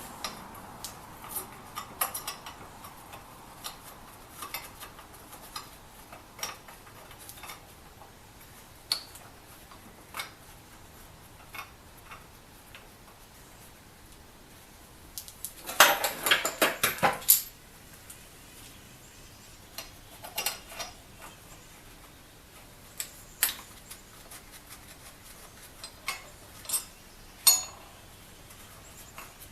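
Scattered light metal clinks and taps of steel parts and hand tools being handled. About sixteen seconds in there is a two-second burst of rapid metallic clattering.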